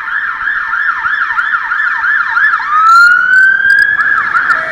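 Emergency vehicle siren on a city street, in a fast yelp of about four rising-and-falling sweeps a second. Just past halfway it switches to one long slow rising wail, then goes back to the fast yelp near the end.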